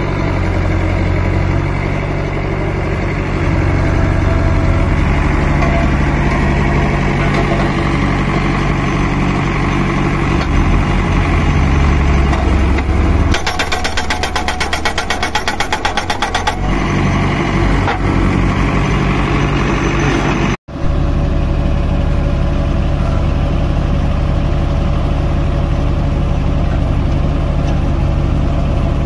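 Diesel engine of a Farmtrac tractor running steadily, powering a tractor-mounted hydraulic post driver. For about three seconds near the middle the post driver hammers in a rapid, even run of blows, pounding a steel crash-barrier post into the ground.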